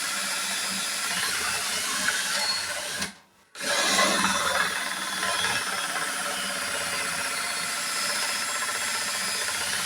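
Battery-powered drill turning a hand-forged drill bit and boring a hole. It stops for about half a second about three seconds in, then runs again.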